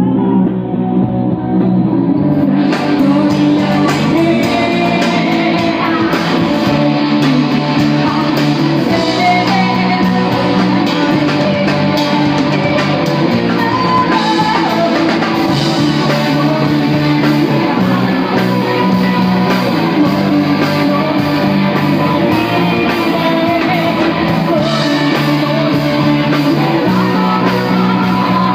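Live rock band playing: electric guitars and bass over a drum kit, recorded in the room. The cymbals come in about two and a half seconds in, and the full band carries on steadily after that.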